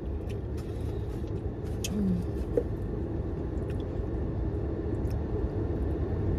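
Car engine idling, heard as a steady low rumble inside the cabin, with a few faint clicks of eating.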